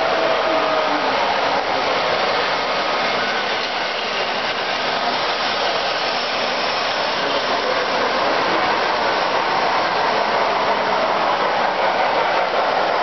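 Tinplate toy trains running on three-rail metal track: a steady whirring rumble of their motors and wheels on the rails.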